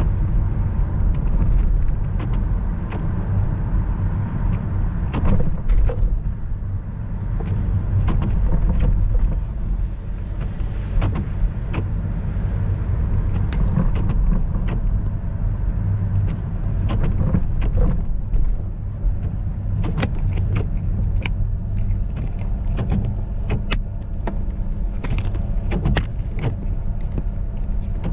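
Car driving on a wet road, heard from inside the cabin: a steady low road rumble, with frequent sharp clicks and ticks scattered throughout, more of them in the second half.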